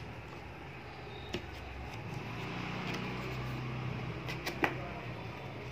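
A cardboard box being handled, with a few light taps and clicks from fingers and the box, the sharpest about three-quarters of the way through. A steady low hum runs underneath.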